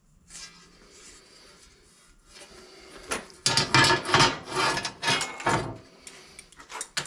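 Metal griddle and locking pliers being handled on a steel workbench: quiet shuffling at first, then, about halfway in, a couple of seconds of loud, irregular metal clattering and scraping as the griddle is laid down and the pliers are moved, with a last knock near the end.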